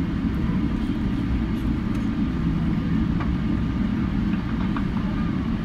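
Steady low rumble in the cabin of a Boeing 777-300 rolling along the runway after touchdown, from engine and landing-gear noise, with a few faint rattles.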